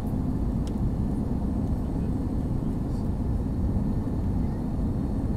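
Steady low rumble of airliner cabin noise, the engines and the airflow past the fuselage heard from inside the passenger cabin while the plane is on approach.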